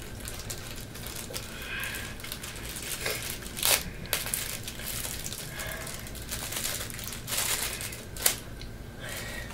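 Clear plastic bag crinkling as it is handled and worked open by hand, with a couple of sharper crackles.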